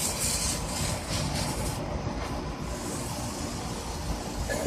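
Poopy Puppy novelty firework burning with a faint hiss that fades in the first second, over a steady low rumble.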